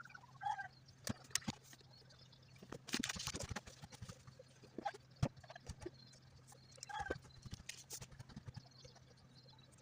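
Scattered light clicks and taps of something being handled, with a brief rustle about three seconds in and a few short faint chirps, over a faint steady low hum.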